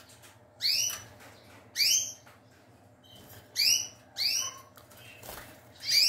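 Young domestic canaries giving short, loud single call notes, five in all at uneven intervals, each a quick upward-sweeping chirp.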